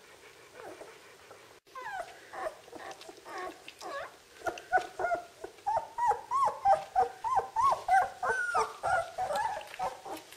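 Thirteen-day-old Czechoslovakian wolfdog puppies whimpering and squealing: a quick run of short cries, each rising and falling in pitch. The cries start about two seconds in and grow louder and more frequent from about halfway.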